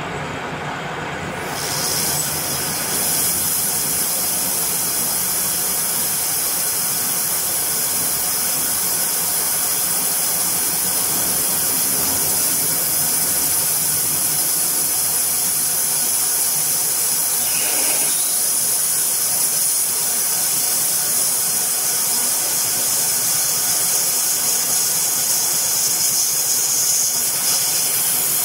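Metal lathe running while a twist drill bores into a spinning stainless steel workpiece, giving a steady high hiss over the machine's hum. The hiss comes in about a second and a half in as the drill bites and holds until the end.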